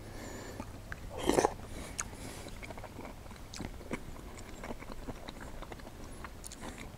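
A person chewing a mouthful of rehydrated chicken curry, with many small wet mouth clicks and a short louder sound about a second in.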